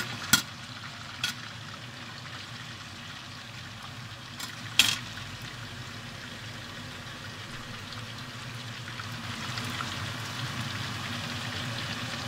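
Stuffed eggplant halves frying in a pot of hot oil, a steady sizzle, with three sharp clinks of kitchen utensils near the start, about a second in and, loudest, about five seconds in.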